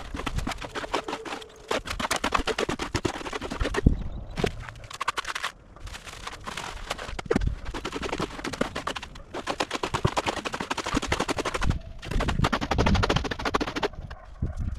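Wet concrete mix being poured and worked into concrete block cores: rapid gritty rattling in repeated runs of one to two seconds with short breaks.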